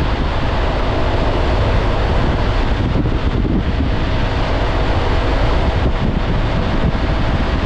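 Wind noise on the microphone over the steady hum of a Honda ADV 350 scooter's single-cylinder engine, running at an even speed on the road.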